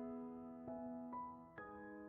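Slow, gentle piano music: single sustained notes struck about every half second, ringing over one another.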